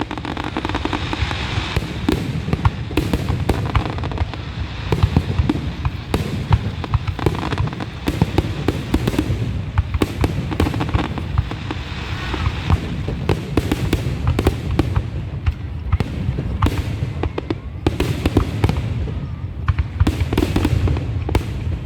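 Fireworks going off in a dense, unbroken barrage of sharp bangs and crackles over a steady low rumble.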